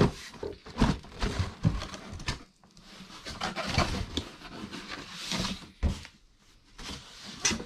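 Cardboard box and plastic packaging being handled: irregular rustling and a few short knocks as the power adapter in its plastic bag is taken out of the laptop box.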